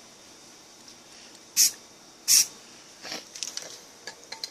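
Aerosol spray paint can firing two short hissing bursts, one about one and a half seconds in and one just after two seconds, as camo paint is dabbed on in quick passes. Light clicking and tapping follows near the end.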